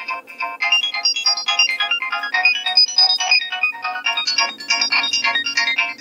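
Nokia 3105 polyphonic MIDI ringtone playing: a quick run of synthesized notes, with a low bass part coming in about four and a half seconds in.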